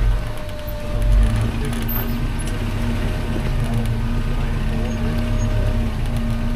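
Off-road vehicle crawling slowly down a steep, rocky trail: the engine runs with a steady low drone and a held tone, and there are a few light clicks and knocks from the tyres and suspension over the rocks.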